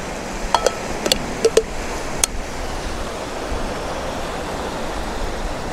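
Wind-driven waves washing steadily onto a rocky lakeshore, with wind on the microphone. In the first two seconds or so, a handful of light clicks and taps from a stainless thermos cup and lid being handled.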